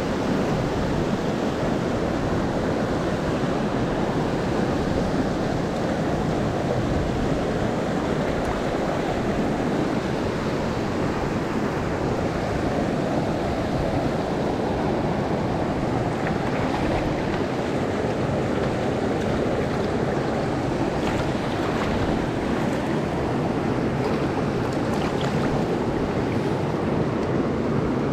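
Mountain stream water rushing over rocks: a steady, unbroken wash of flowing water.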